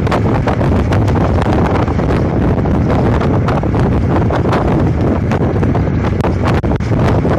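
Loud wind buffeting the microphone, a continuous low rumble with many short crackles and knocks through it.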